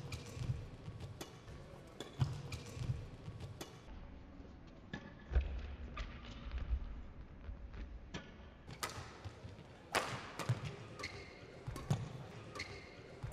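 Badminton rally: sharp, irregularly spaced cracks of rackets striking the shuttlecock, mixed with low thuds of players' feet landing and lunging on the court.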